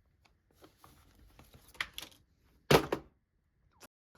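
Scattered small clicks and taps of objects being handled, with one louder knock a little past the middle.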